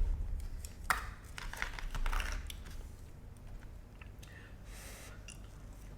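A few light clicks and taps with short rustles, a takeout food container and its packaging being handled. The sharpest click comes about a second in, and the sounds thin out after about two and a half seconds.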